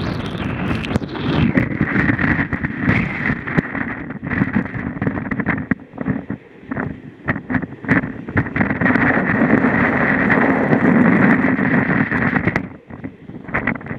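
Storm-force wind buffeting the microphone on the deck of a sailing yacht, in heavy gusts that ease off briefly about six seconds in and again near the end.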